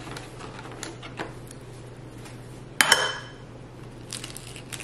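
A raw egg is knocked once, sharply, against the rim of a ceramic bowl to crack it, about three seconds in; the bowl rings briefly. A few faint clicks come before it.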